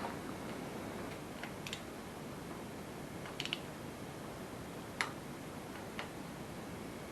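Scattered light clicks and taps of hand tools and small metal parts, a few seconds apart, over a steady low hiss, as a fitting is screwed into an engine block.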